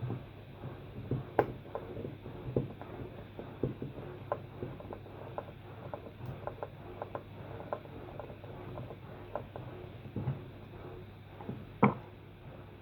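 Irregular light clicks and knocks of plastic air-pump parts being handled and fitted together during reassembly, with one louder knock near the end, over a steady low hum.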